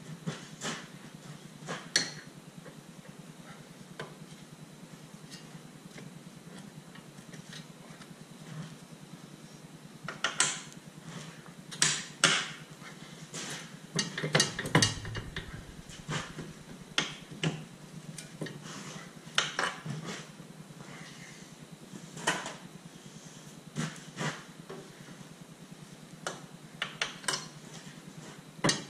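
Irregular metallic clinks and knocks of a steel pry bar and tools against a car's lower control arm and suspension as the arm is levered and wiggled to line up its bolt holes. The knocks are busiest around the middle.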